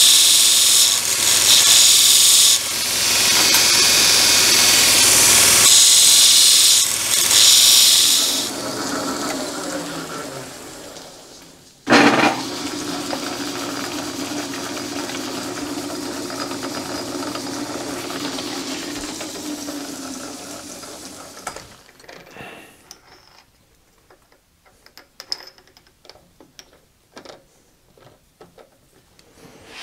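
Belt grinder grinding the end of a steel rod, a loud steady hiss broken by a few short pauses as the work is lifted off, then fading as the grinder winds down. After a sudden click about twelve seconds in, a lathe runs with a steady hum for about ten seconds and stops, leaving light metallic clicks and taps as the chuck is handled.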